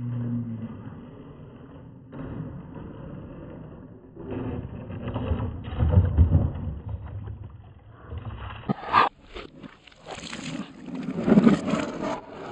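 Marbles rolling along a wooden marble-run track, a low rolling rumble that swells and fades, with sharper clicks and knocks near the end.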